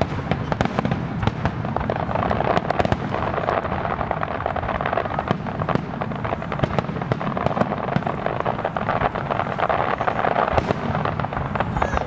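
Aerial fireworks display going off in a dense, continuous barrage of overlapping bangs and cracks, many per second.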